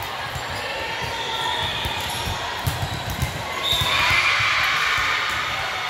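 Echoing gym noise: volleyballs thumping on a hardwood floor and being struck, many short thuds in quick succession. Voices swell about four seconds in.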